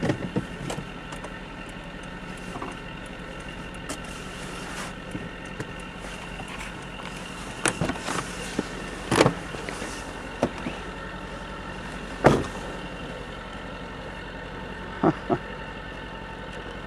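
Natural gas compressor station heard from a car on the road: a steady mechanical drone with several held tones. Several sharp knocks and clatters break in at irregular moments.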